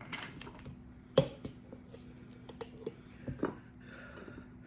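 Light clicks and knocks of food being handled while a sandwich is made, the sharpest about a second in, with a short rustle at the start, all over a steady low hum.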